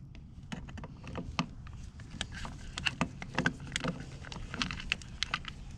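Scattered light clicks and taps of parts being handled while a carburetor and its throttle cable are loosened, over a low background rumble.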